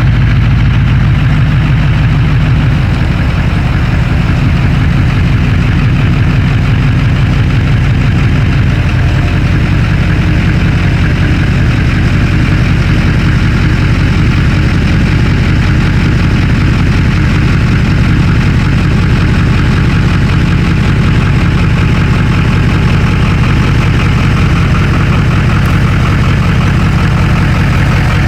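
A vehicle engine running steadily at an even speed, with no change in pace.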